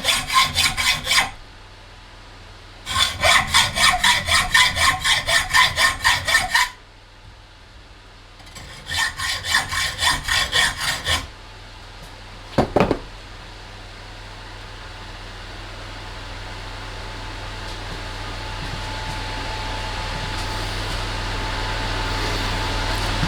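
Hand hacksaw cutting through metal bar stock in three bouts of quick back-and-forth strokes, about three a second. Then a single short knock, followed by a steady hum that slowly grows louder.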